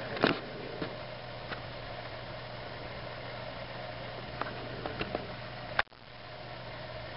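Steady low mechanical hum with a hiss over it, broken by a few light clicks and taps. The loudest tap comes just after the start, and a sharp click near the end is followed by a brief drop in level.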